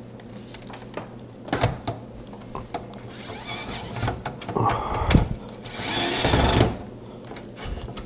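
Cordless electric screwdriver whirring in short bursts as it drives in the screw that holds the graphics card's bracket to the case; the longest and loudest burst comes near the end. A few sharp clicks come before the bursts.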